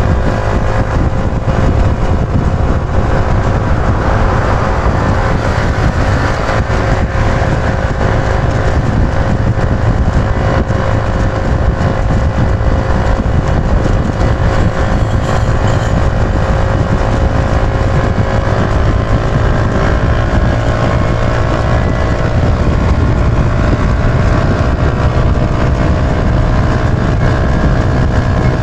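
Yamaha YB125Z DX's single-cylinder engine running steadily while the motorcycle is ridden, with heavy wind rumble on the microphone. The engine's pitch creeps up a little in the last several seconds.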